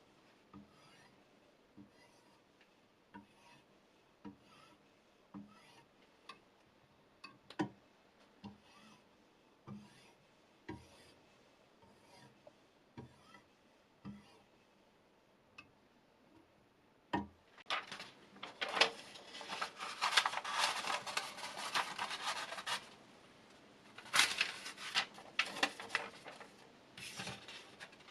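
A knife blade being sharpened on an abrasive: soft, separate knocks about once a second at first, then about seventeen seconds in, a run of rapid scraping strokes of steel on the abrasive, which pauses briefly and starts again near the end.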